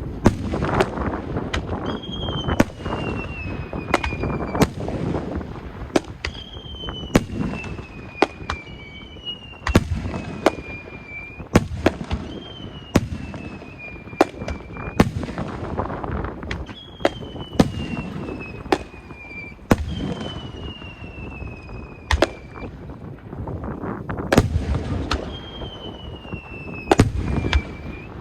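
Japanese aerial fireworks display with many sharp shell bursts and crackling reports. About seven whistles fall in pitch over a couple of seconds each, overlapping one another.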